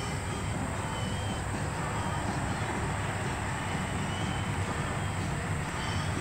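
Steady outdoor background noise with a low rumble and a few faint, short high chirps.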